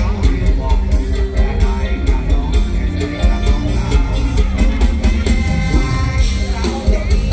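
Live mor lam band music played loud through a stage PA, with a steady drum beat under keyboard and saxophone.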